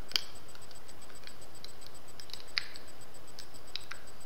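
Teeth biting and grinding at a thick hard-candy lollipop, giving a few sharp clicks and cracks, the loudest about a tenth of a second in and about two and a half seconds in, over a steady hiss. The candy is too thick to bite through, and only a small corner chips off.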